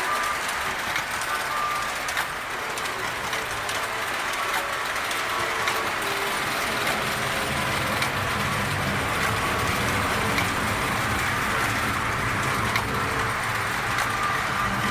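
O-gauge three-rail toy trains running on the layout: a steady mechanical whir and wheel rumble on the track, which grows deeper about halfway through, with a few brief tones now and then.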